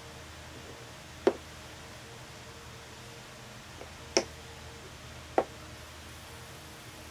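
Wooden chess pieces being set down on a chessboard: three sharp clacks, about a second in, about four seconds in and again a second later, over a faint steady hum.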